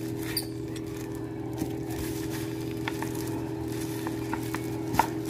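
Small clicks and taps of a metal cookie cutter being handled and pressed into soft cookie dough, a few scattered through, over a steady low hum.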